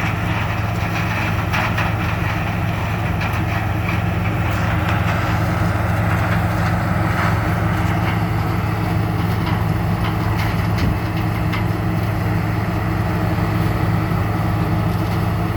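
New Holland TR99 combine harvester running steadily while harvesting: a constant low engine hum under an even machinery noise.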